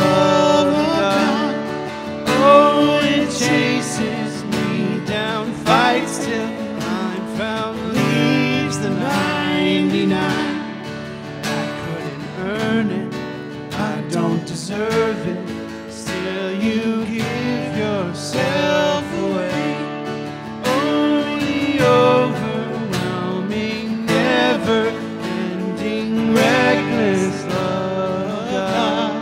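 Two acoustic guitars strummed together with male voices singing a slow worship song.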